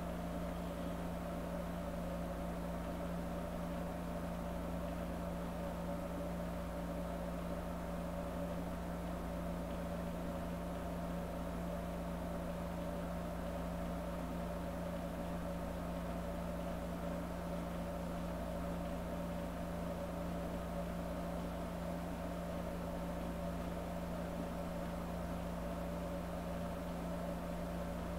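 A steady, unchanging low drone of several held tones over a faint hiss, with no change in level or pitch.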